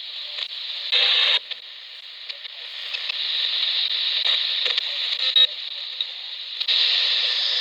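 Radio receiver static: a steady hiss with scattered clicks and crackles and a short louder burst about a second in.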